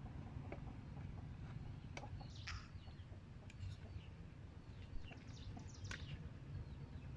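Light clinks of a metal spoon against small seasoning dishes and a pot, over a steady low rumble, with short bird calls about two and a half seconds in and again near six seconds.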